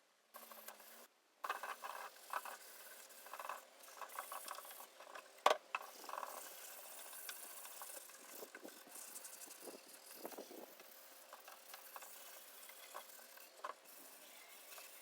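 Hand-tool work on a wooden cabinet: irregular small clicks, rattles and scraping, with one sharp knock about five and a half seconds in.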